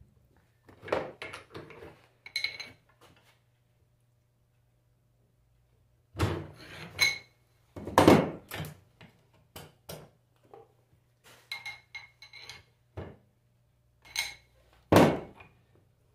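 Metal alternator parts and hand tools knocking and clinking on a workbench during reassembly: a series of separate irregular knocks, some with a short metallic ring, with a pause of about three seconds between two bursts of handling.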